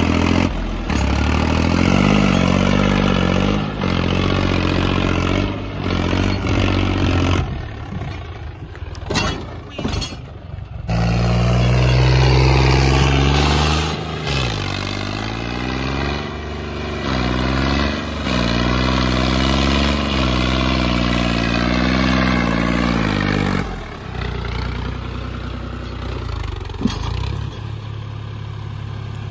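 John Deere 5039 tractor's three-cylinder diesel engine revving hard under load, its pitch rising and falling again and again. About eight seconds in it drops away and breaks up for a few seconds with a clatter. It then revs strongly again and settles to a lower, steadier run, with a single sharp click near the end.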